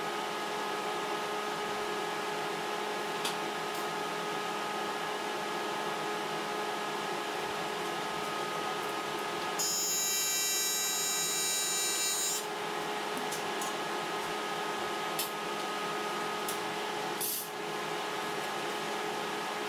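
AC TIG welding arc on aluminum buzzing for about three seconds, about ten seconds in, high-pitched like a drill whine. A steady electrical hum runs under it, with a few light clicks.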